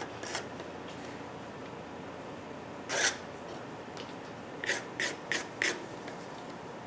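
Drawing pencil scratching across paper: one longer stroke about three seconds in, then four short strokes in quick succession about a second and a half later, over a steady low hiss.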